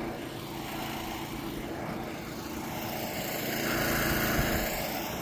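An engine hums steadily under an outdoor noise bed, and the noise swells briefly about four seconds in.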